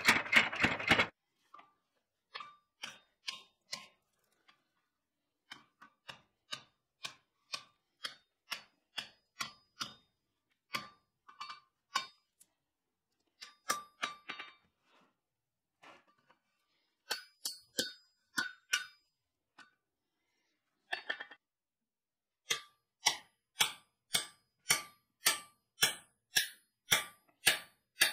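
Power hammer blows hitting the hot hammer head in a rapid run that stops about a second in. They are followed by hand-hammer blows on hot steel at the anvil, each with a short metallic ring, in spaced groups. Near the end a steady run of about two blows a second drives a drift into the hammer eye.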